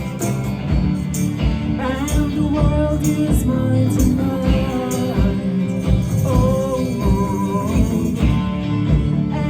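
Live indie pop band playing: strummed guitars, bass and drums keeping a steady beat, with a sung melody over the top.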